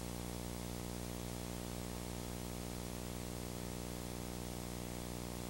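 Steady electrical hum with an even hiss over it, the background noise of the soundtrack once the music has ended; no voice or music.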